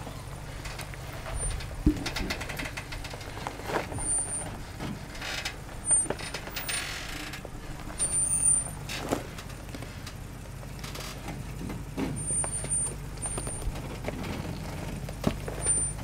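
Lifted Ram Power Wagon crawling over rocks at low speed: its V8 engine running low and steady, with scattered knocks and crunches as the tires climb over the rock.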